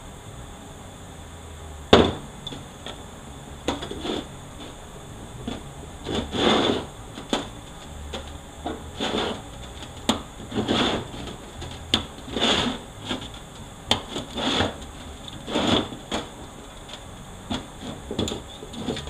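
Metal parts of a 4L80E automatic transmission being pulled out and handled during teardown: irregular clanks and knocks with short scraping slides, a dozen or so, the sharpest about two seconds in.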